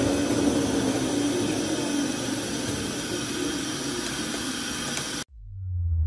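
Paste mixer running, a steady mechanical noise with a low hum as its arms turn in the bowl. It cuts off abruptly about five seconds in, and a low rumble starts to swell.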